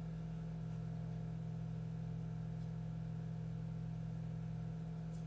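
A steady low hum with a fixed pitch, holding level throughout.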